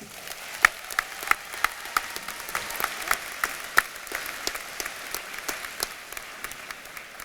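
Audience applauding a speech, a dense patter of many hands clapping that thins out toward the end.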